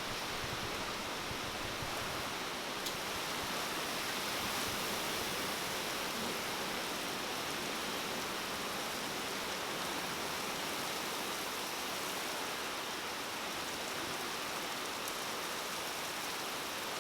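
Heavy wind-driven rain and strong wind gusts from a severe thunderstorm, a steady unbroken hiss.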